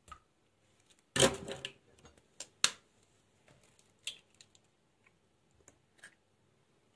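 Eggs being cracked and separated by hand: a loud knock with a short rattle about a second in, then sharp clicks and smaller taps of eggshell against the bowl.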